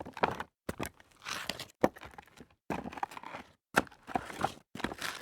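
Sneakers stepping on loose rock debris: a series of gritty crunching footsteps, about one or two a second, with short pauses between them.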